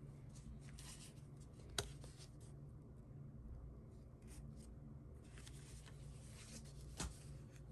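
Hands handling a paper greeting card and a plastic-sleeved stamp set on a cutting mat: faint rustling and sliding of paper, with two small taps, about two seconds in and about seven seconds in.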